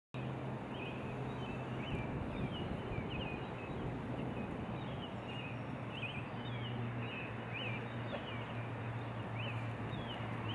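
Outdoor ambience cutting in abruptly: many short, high chirps of small birds calling over a steady background hiss and a low, steady hum.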